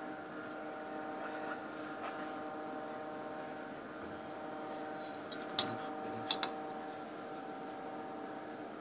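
Steady multi-tone electrical hum of lab equipment. A few light, sharp clicks come a little past halfway, as glass slides and clips of a small handmade dye-sensitized solar cell are handled on a tiled bench.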